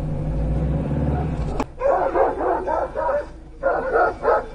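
A low steady rumble cuts off with a click about a second and a half in. A dog then barks in quick runs of short barks, pausing briefly near the middle.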